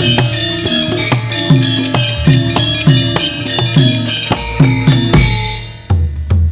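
Javanese gamelan playing a lively dance piece. Steady, rhythmic kendang hand-drum strokes drop in pitch as they sound, over ringing metallic keyed instruments. The music thins and dips briefly about six seconds in.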